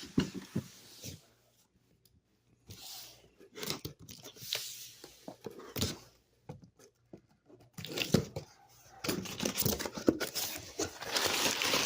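Cardboard shipping box being opened by hand: tape and cardboard tearing, with scattered scrapes and crunches. In the last few seconds comes a steadier rustling and crinkling of packing material.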